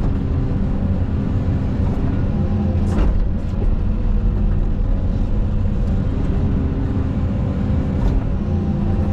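Caterpillar 320 hydraulic excavator's diesel engine running steadily under load, with a couple of sharp knocks about three seconds in and near the end.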